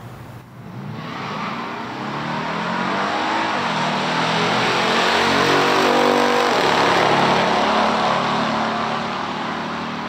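Two big-block V8 muscle cars at full throttle in a drag race: a Dodge Super Bee's 440 six-pack and a 1969 Camaro SS's 396. Their engine notes climb and drop back twice as the three-speed automatics shift up. The sound is loudest about six seconds in as they pass, then fades down the track.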